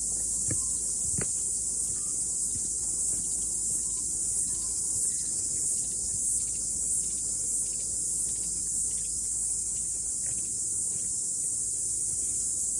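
Chorus of cicadas singing: a steady, high-pitched drone without a break. A couple of soft knocks sound about a second in.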